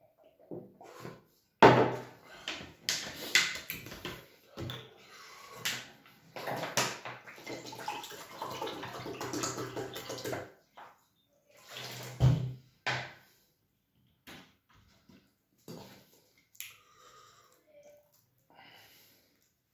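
Wet close-up eating sounds: gulping from a glass of water, then fingers squelching fufu through light soup. Dense wet noise full of clicks runs for several seconds, with a louder burst after a short pause, then thins to scattered smacks.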